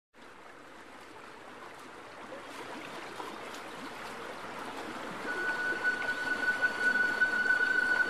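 Water from a glass tabletop fountain falling down the glass panel and splashing onto polished river rocks in the basin: a steady trickling splash that grows louder. From about five seconds in, a steady high tone sounds over the water.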